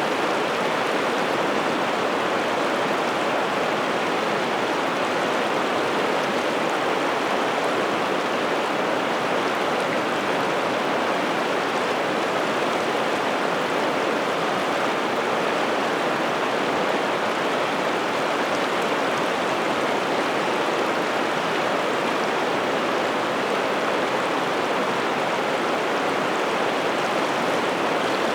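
Piteälven river water flowing, a steady, unbroken rush of running water.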